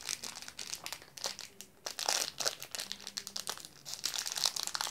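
Small gummy-bear packet crinkling as it is worked between the fingers, in irregular bursts of crackling.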